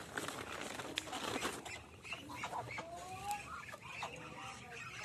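A flock of Muscovy ducks crowding in for feed, giving many short, thin squeaky calls that rise and fall, over shuffling and rustling.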